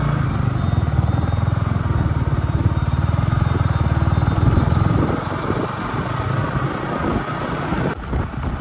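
Motorcycle engine running as the bike rides along the road, a low rapid pulsing over a steady rush of wind and road noise. About five seconds in, the engine's low pulsing fades back.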